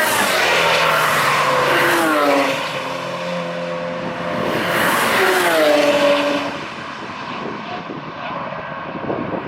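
Two cars pass at speed one after the other. The first goes by about two seconds in and the second, louder one about five to six seconds in, each engine note dropping in pitch as it passes.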